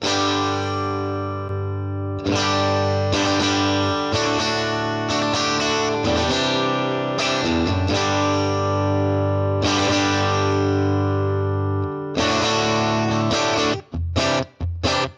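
Electric guitar played through a Fractal Audio FM9 modelling the Nuclear Tone amp and a 1x12 Nuclear Tone DynaCab, with a ribbon mic and a Dynamic 2 mic blended: distorted chords struck and left to ring, then a few short choppy stabs near the end.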